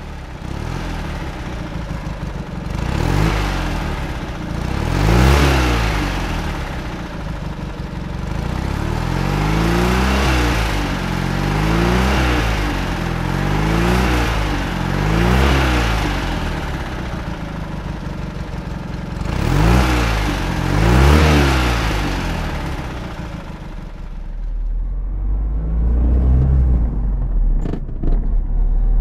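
NSU Sport Prinz's small rear-mounted air-cooled two-cylinder engine being revved in repeated blips, each rising and falling in pitch, roughly every two seconds. Near the end the revving stops and it settles to a steadier idle.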